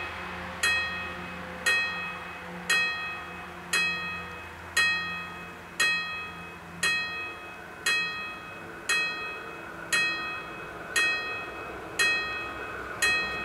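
Level-crossing warning bell striking single strokes about once a second, each stroke ringing on and fading before the next. Near the end the noise of the approaching train starts to build underneath.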